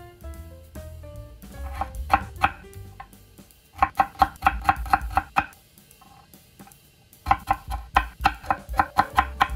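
Kitchen knife chopping beetroot on an end-grain wooden cutting board: three quick runs of sharp taps, about five a second, separated by short pauses. Background music plays underneath.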